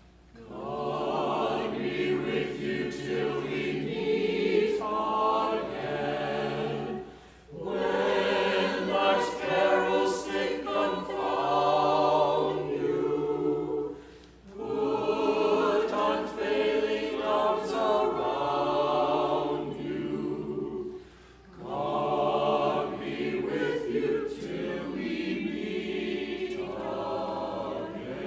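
A choir singing in long phrases of about seven seconds each, with short breaks between them.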